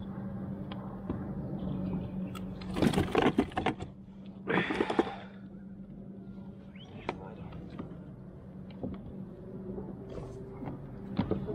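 Clicks and knocks of fishing gear being handled between two kayaks, bunched about three seconds in, then a short rush of noise just before five seconds, over a steady low hum.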